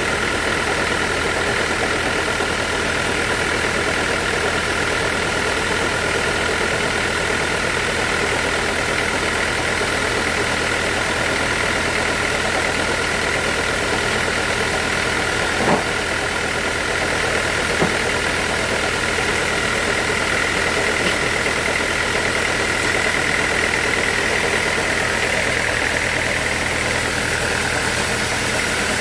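Sawmill saw and its motor running steadily while sawing teak logs: a constant high whine over a low hum, with two short knocks a little past halfway.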